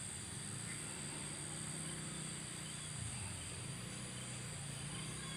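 Insects chirring steadily in a thin, high-pitched drone over the fields, with a low steady hum underneath.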